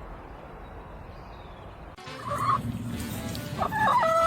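A faint steady outdoor hiss, then a sudden cut to a loud animal call: a short call, then a longer, louder one near the end.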